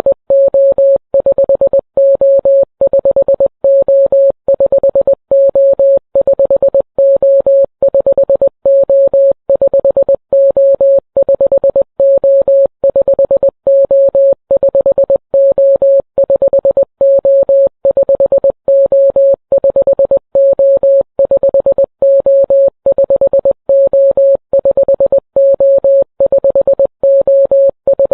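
Morse code SOS sent as a loud single-pitch electronic beep, keyed in short and long tones (three short, three long, three short) and repeated over and over without a break.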